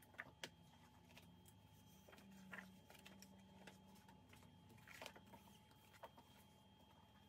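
Near silence, with a few faint brief rustles and light taps as 12x12 paper pads and loose sheets are handled and set down on carpet.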